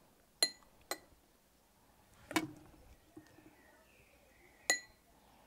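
Metal spoon clinking against drinking glasses as coleslaw is spooned in: four short clinks, the first and last ringing glassily, the third duller.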